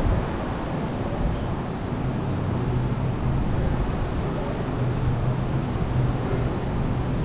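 Steady city ambience: a continuous rumble and hiss of distant traffic and wind, with a faint low hum coming and going from about two seconds in.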